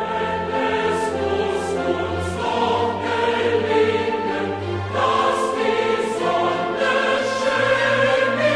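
Background music: choral and orchestral music with sustained sung notes.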